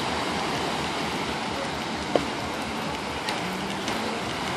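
Lake Erie surf breaking on a sandy beach, a steady wash of waves. A single sharp click cuts through about two seconds in.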